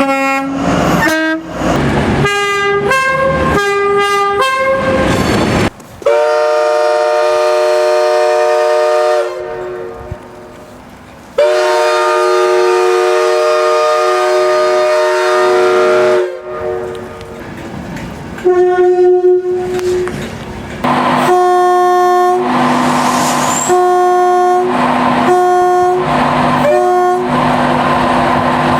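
Train horns sounding in a string of separate recordings: first a run of short blasts that change pitch, then two long multi-note chord blasts of several seconds each, then another horn giving held tones.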